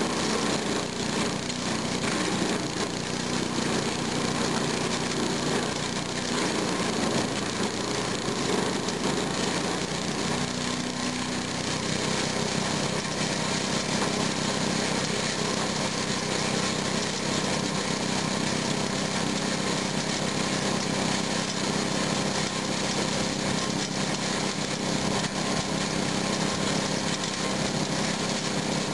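Kemp chipper-shredder's small gasoline engine running steadily while branches are fed in and shredded. The engine note wavers under the load during the first dozen seconds, then settles.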